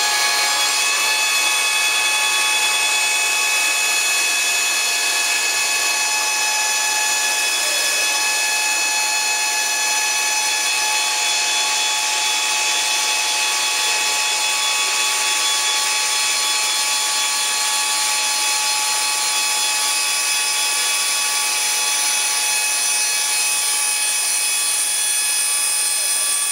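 Steady, loud machine whine made of many high, steady tones over a hiss.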